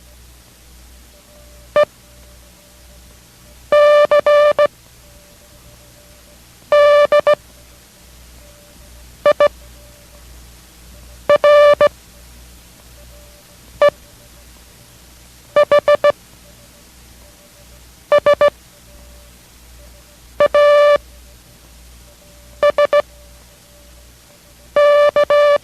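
Morse code practice tones: a buzzy, steady-pitched beep keyed in dots and dashes, sending single characters about every two seconds at faster-than-lesson speed. The characters are E, C, D, I, R, E, H, S, A, S, C.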